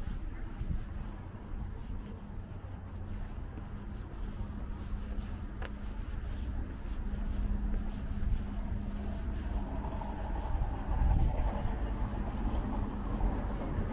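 Motor vehicle engine noise: a steady low hum over a low rumble, growing louder in the last few seconds.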